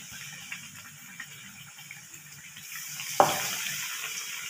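Gram-flour-battered bread slices deep-frying in hot oil with a steady sizzle. About three seconds in, another battered slice goes into the oil with a sharp splash and the sizzling grows louder.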